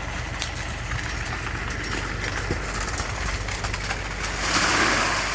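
Concrete mixer truck's diesel engine running steadily, with a rushing noise swelling up about four and a half seconds in.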